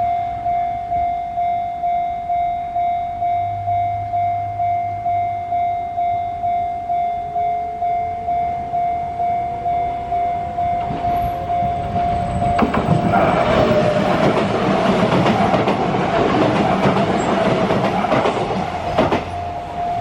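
A Japanese level-crossing warning bell dings steadily at about two strikes a second, with the crossing closed. About twelve seconds in, a Kintetsu Minami-Osaka Line train passes through, louder than the bell: a rush of noise with clattering wheel clicks for about seven seconds. It fades near the end while the bell keeps ringing.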